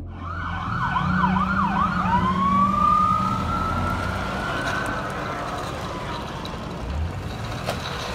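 Police car siren: a fast up-and-down yelp for about two seconds, then a switch to a long, slow wail that rises over about three seconds and sinks back, over the low rumble of vehicle engines.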